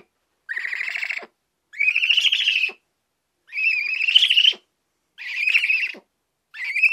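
Eagle owl giving a series of harsh, raspy screeching calls, about five in a row, each just under a second long and rising slightly in pitch, with short gaps between them.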